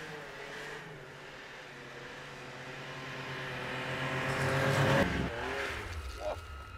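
Snowmobile engines running as the machines ride toward the microphone through deep snow, growing steadily louder for about five seconds. Then a sudden cut to a quieter, lower engine rumble.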